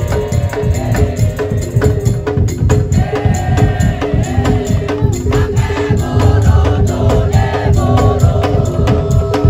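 A Daul Madura percussion ensemble playing: dense, fast drumming with a repeated pitched note and a wavering melody line over it.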